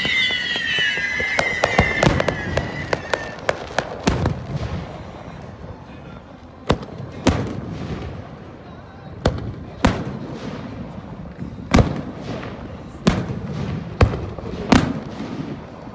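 Fireworks display: several whistling shells fall in pitch and fade over the first few seconds, overlapped by a quick run of sharp crackling reports. After that come single booming bursts about every one to one and a half seconds.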